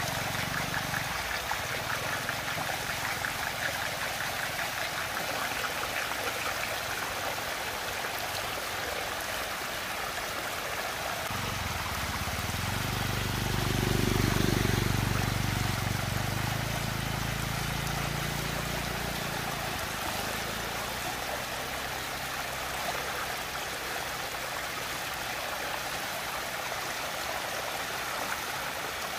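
Water of a large whirlpool rushing and swirling down its vortex, a steady, even wash of noise. A low hum swells in the middle and fades again.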